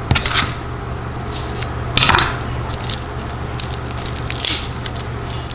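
Three short crinkling rustles as a foil-and-banana-leaf wrapped pork loaf is handled, over a steady low hum.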